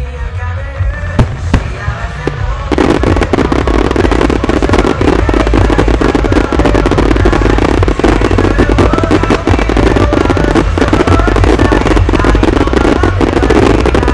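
Fireworks bursting over music: two sharp bangs about a second in, then from nearly three seconds a dense, continuous crackling of many bursts.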